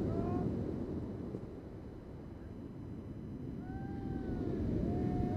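Wind on the microphone and surf breaking on a shingle beach, a steady low rumble, with birds giving short rising-and-falling calls briefly at the start and again, several overlapping, in the second half.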